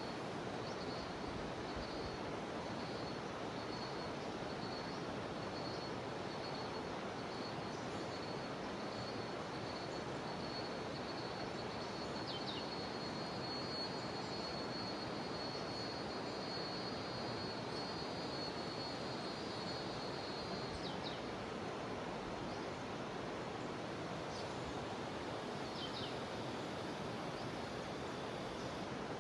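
Steady rush of a jungle river's flowing water, with a thin, high insect drone from cicadas that comes and goes and holds for several seconds in the middle. A few short high chirps come and go.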